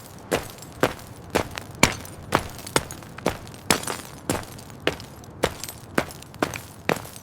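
Running footsteps on a hard surface: a steady run of sharp, crisp footfalls, about two a second.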